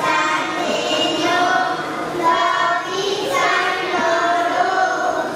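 A small group of young children singing together into microphones, in sustained sung phrases.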